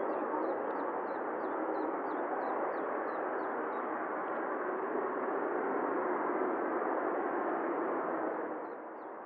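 Boeing 777-300ER's GE90-115B jet engines running, a steady rushing hiss that drops off a little near the end. Over the first half, a bird gives short high chirps about three times a second.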